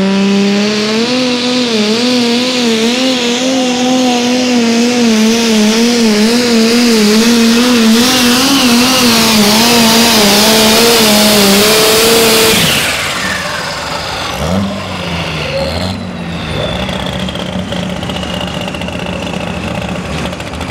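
Modified pulling tractor engine at full throttle under load, its pitch wavering up and down as it drags the sled. About twelve seconds in the throttle is cut and the engine drops to a lower, quieter run, while a high whine slowly falls away.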